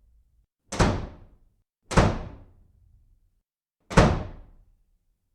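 Three sharp, heavy thuds or slams, each dying away quickly, the second about a second after the first and the third about two seconds after that.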